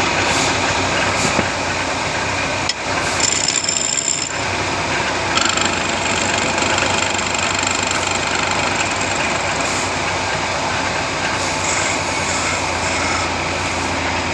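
Woodworking machine's motor running steadily with a constant hum, its sound changing briefly about three seconds in.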